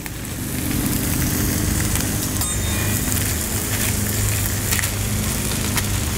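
Sliced deli turkey and bacon sizzling steadily on a Blackstone flat-top griddle, with a few short scrapes and taps of a metal spatula on the steel. A lawn mower's steady low hum runs underneath.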